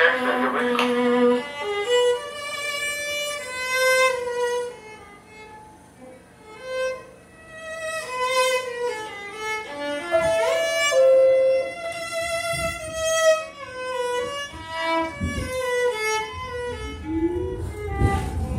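Solo violin playing a melody of sustained bowed notes, with an upward slide to a high note about ten seconds in and a softer passage around six seconds in. A low rumble builds under it near the end.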